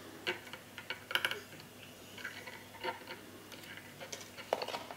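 Scattered light clicks and ticks of stiff steel piano wire being handled and worked at a small bench vise, with a cluster about a second in and a few more near the end.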